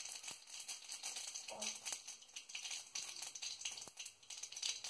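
Mustard seeds and dried red chillies frying in hot oil in a steel kadai, the seeds popping in a quick, irregular patter of small clicks over a faint sizzle.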